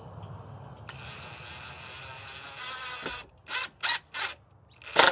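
DeWalt cordless impact driver backing a screw out of a cedar joint: a steady run for about two seconds, then several short bursts on the trigger.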